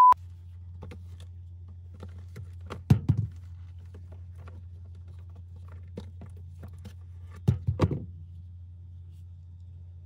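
Groceries being put into an open mini fridge: knocks and thuds as items are set on the shelves and in the door, about three seconds in and again near eight seconds, over a steady low hum. A short beep at the very start.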